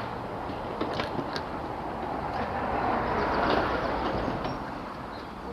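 Mobility scooter moving, a steady rumble that swells about halfway through, with a couple of sharp clicks about a second in.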